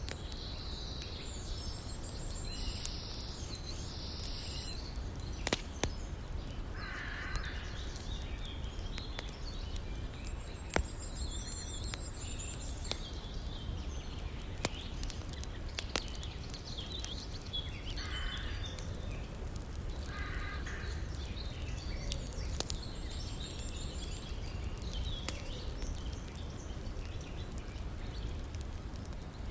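Wood fire crackling, with a few sharp pops, over a steady rush of river water; birds call now and then, a few harsher calls around 7, 18 and 20 seconds in.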